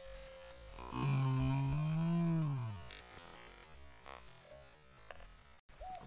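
A low, drawn-out voice-like sound held for nearly two seconds, rising slightly and then dropping away, over a steady high insect buzz.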